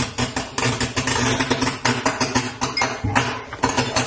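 Dense, irregular crackling and sizzling over a steady low hum.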